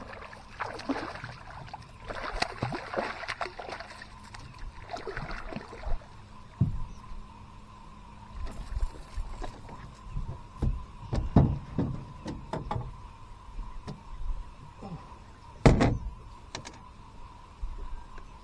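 Water splashing as a channel catfish is brought to the side of the boat, then a string of knocks and thumps on the boat as the fish flops and is handled aboard, the loudest thump about 16 seconds in. A faint steady high tone runs underneath.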